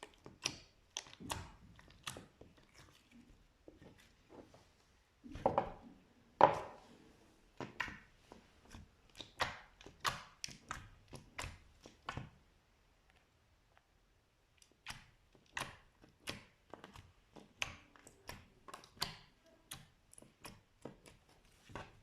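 Slime being worked, making a run of short crackling pops and clicks. The pops are loudest about six seconds in and pause for a second or two past the middle.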